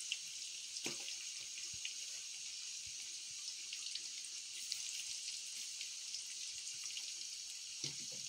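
Fish deep-frying in a karahi of hot oil: a steady sizzling hiss with many small crackles and pops. A couple of light knocks, about a second in and near the end.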